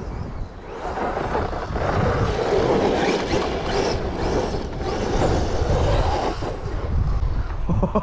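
Outcast 8S EXB radio-controlled truck driving over rough dirt, its electric motor and drivetrain running with the tyres scrabbling on the ground as the rear end tries to find traction. The sound swells about a second in and rises and falls with the throttle.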